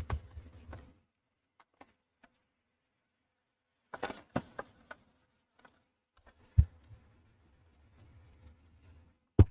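Scattered small handling noises of work on a plastic model: a few light rustles, a single knock about two-thirds through and a sharp click near the end, over a faint low hum.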